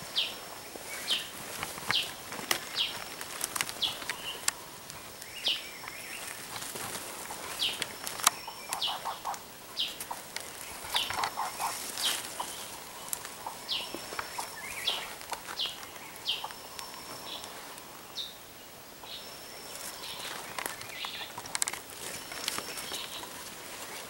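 Jungle birds calling, one repeating short, sharp downward chirps about once a second, with occasional brief high whistles and a quick trill. Scattered crackles of footsteps in leaf litter are heard underneath.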